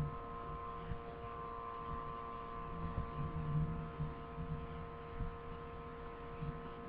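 Low, steady electrical hum made of several held tones, with a faint uneven low rumble beneath it: quiet room tone.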